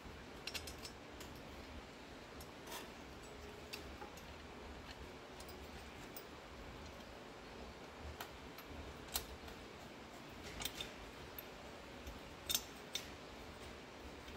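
Faint, scattered metal clicks and light taps as a finned cylinder head, its head bolts in place, is handled and seated back onto the cylinder of a twin-cylinder Kohler engine over a new head gasket. The clearest clicks come about nine seconds and twelve and a half seconds in.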